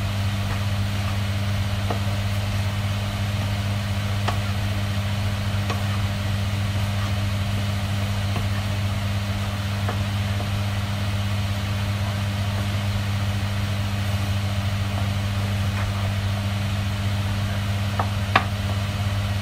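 Diced chicken frying in a pan with a steady sizzle, a wooden spatula stirring it and now and then knocking against the pan, over a steady low hum.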